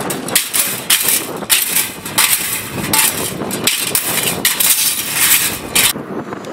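Small decorative farm windmill rotor spinning on its failed main bearing, clattering and knocking irregularly, two or three knocks a second. Near the end the clatter stops and wind noise on the microphone is left.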